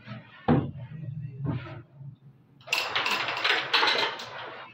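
Carrom striker flicked into the pieces: a sharp clack about half a second in and another about a second later, then a denser stretch of clicking and rattling in the second half.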